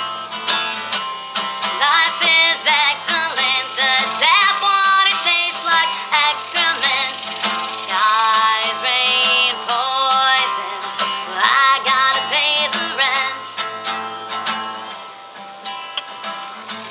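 A woman singing loudly, her voice wavering on held notes, over a strummed acoustic guitar. About three-quarters of the way through the singing stops and the guitar plays on more quietly.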